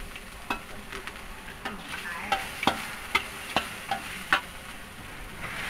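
Metal spatula clinking and scraping against a large aluminium wok as meat and curry paste are stirred, about eight irregular knocks over a light frying sizzle.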